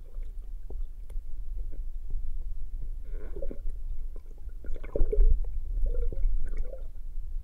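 Underwater sound picked up by an action camera in its waterproof housing: a steady low rumble with a few muffled knocks and bubbly gurgles, loudest about five seconds in.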